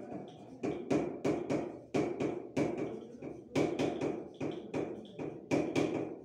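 Writing on a board: a pen or chalk tip taps and knocks against the surface at about three strokes a second, in uneven runs.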